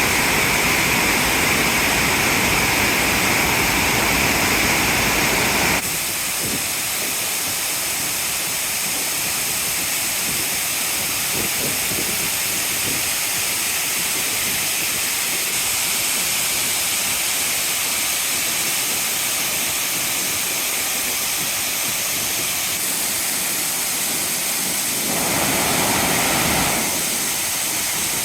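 Water spilling over the Nagashino weir in a steady rushing wash of noise. About six seconds in it changes abruptly to a slightly quieter, thinner sound, then swells again briefly near the end.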